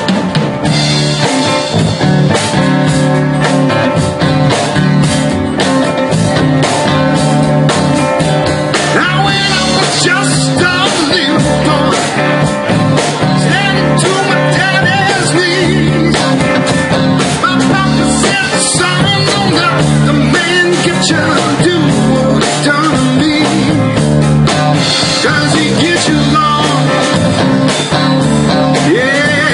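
Live rock band playing a song: electric guitars, keyboard and drums keeping a steady beat, with a singer's vocal over the band from about nine seconds in.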